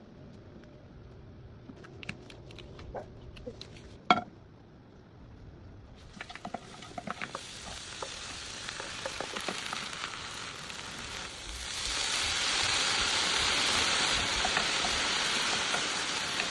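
Food frying in a pan, sizzling; the sizzle sets in about six seconds in and grows much louder about halfway through. Before it come a few clicks and one sharp knock.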